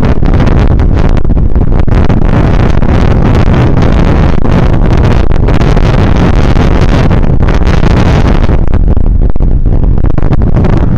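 Loud, steady wind buffeting on the microphone of a camera mounted on a moving bicycle's handlebars, a dense low rumble with constant crackle from road vibration.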